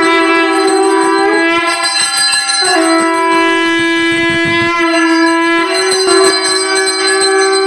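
A wind instrument playing a slow melody of long held notes that step down and back up in pitch, with a bell ringing behind it during the lamp arati.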